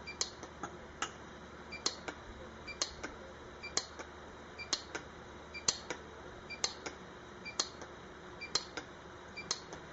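Lampert PUK 3S pulse-arc welder firing weld pulses on a thin silver seam, a sharp click about once a second, each with a fainter click beside it.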